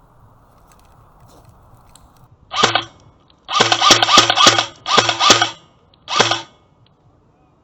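Airsoft gun firing four bursts: a short one, two longer strings, then a short one.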